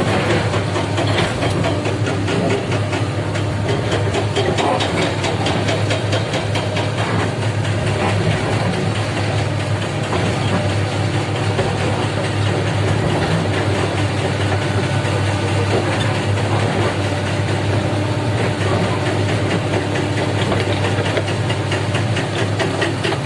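Heavy diesel engines of a Komatsu PC300 excavator and a dump truck running steadily, a loud low drone that holds even throughout.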